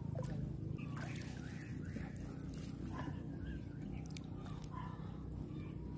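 Wet nylon gill net being pulled in by hand from the water, with scattered small drips and splashes, over a steady low hum.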